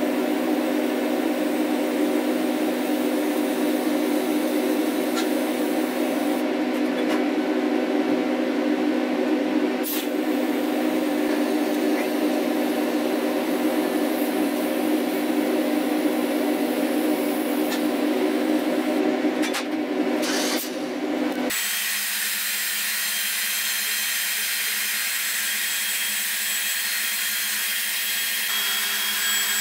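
TIG welding metal engine-mount brackets: a steady buzzing hum. About 21 seconds in it changes abruptly to a cordless drill spinning a wire brush against a car's frame rail, cleaning it for welding: a steady high whir.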